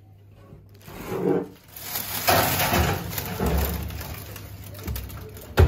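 A glass baking dish being slid onto a wire oven rack: scraping and clattering of glass on metal, ending in a sharp knock.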